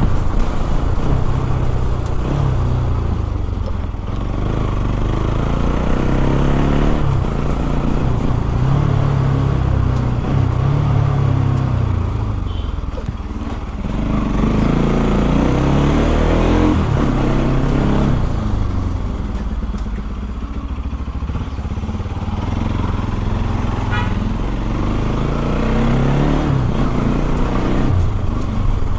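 Bajaj Pulsar NS200's single-cylinder engine running through an aftermarket Akrapovic exhaust fitted with a dB killer while being ridden. The exhaust note rises and falls repeatedly with the throttle, easing off briefly a few times.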